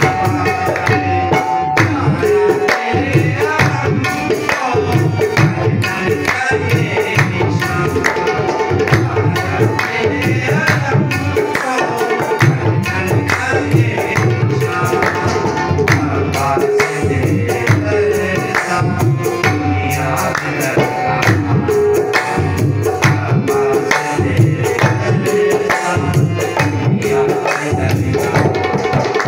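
Tabla and harmonium playing together: quick, dense tabla strokes over short held harmonium notes.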